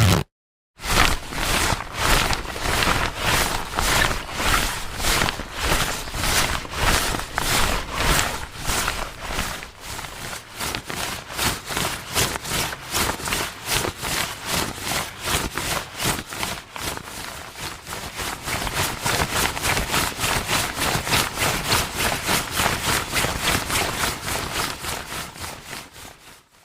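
A steady run of knocks or footfalls, about two to three a second, fading out near the end.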